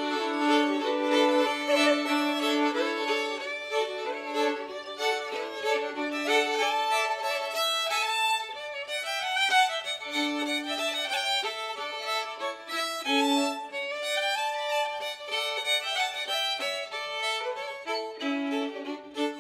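Folk fiddle music: a violin playing a tune of quickly changing notes.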